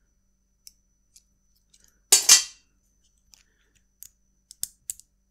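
Metal Allen keys clinking against each other as a smaller hex key is picked out of the set, with light clicks, one louder metallic rattle about two seconds in, and a few sharp clicks near the end.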